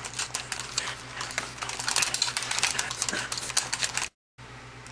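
Game controller buttons being mashed rapidly by two players in a fighting game, a dense irregular clatter of plastic clicks that cuts off abruptly about four seconds in.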